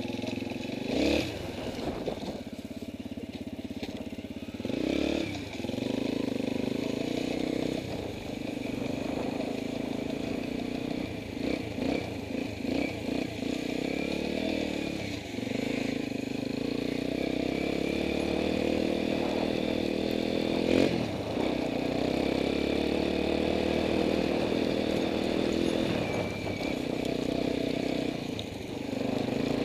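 Dirt bike engine running at low speed, ridden through snow, with repeated brief throttle blips that rise and fall in pitch.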